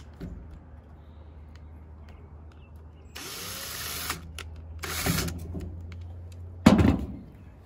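DeWalt 18-volt cordless drill boring through a hollow river-cane pole, with two short bursts of cutting noise in the middle. A loud clunk comes near the end.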